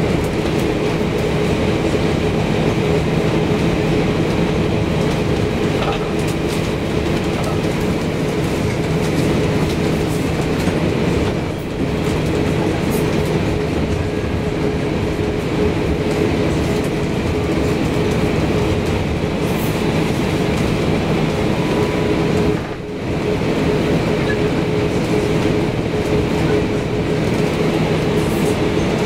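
Cabin noise of an Airbus A340-600 taxiing onto the runway: a steady hum from its four Rolls-Royce Trent 500 engines at low power, with constant tones over a rumble and hiss. The level dips briefly twice, about 11 and 23 seconds in.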